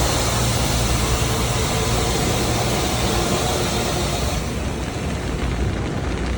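Automatic car wash running over the car, heard from inside it: a steady hiss of water spray with low machinery rumble. The hiss falls away about four seconds in while the low rumble carries on.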